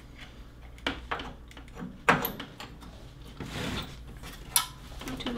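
A few separate light clicks and knocks, the strongest about two seconds in, as a flat-screen TV's power cord is handled and plugged in.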